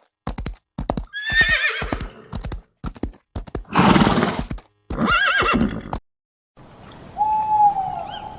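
Horse neighing, a whinny with a wavering, falling pitch, heard over the sharp clip-clop of hooves, with three neighs in the first six seconds. After a short gap near the end, an owl starts a steady hoot.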